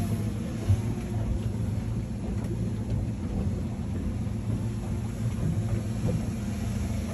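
Fishing boat's engine running steadily, heard from the helm, its sound mostly low-pitched, with one short thump about a second in.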